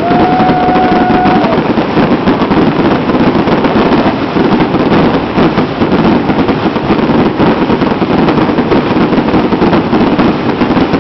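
Fireworks going off in a dense, continuous barrage of bangs and crackles, with a brief steady whistle in the first second and a half.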